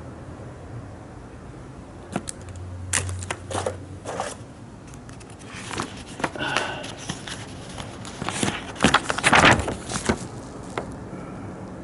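Handling noise of an ignition wiring harness and a paper instruction sheet on a workbench: rustling and crinkling with scattered light clicks, loudest about nine seconds in.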